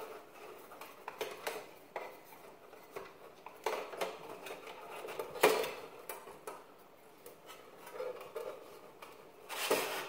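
Scattered clicks, taps and scrapes of metal parts being handled inside the aluminium case of a Mac Pro tower, as an SSD is fitted into the optical bay and its SATA cable plugged in. The loudest knock comes about five and a half seconds in, with a quick run of clicks near the end.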